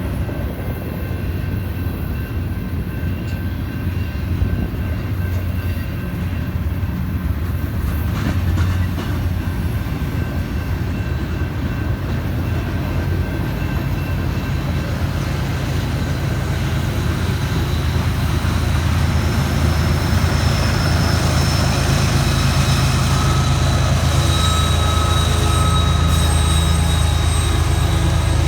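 Freight cars of a manifest train rolling past with a steady rumble that slowly gets louder, and high wheel squeals that come in around the middle and grow stronger toward the end.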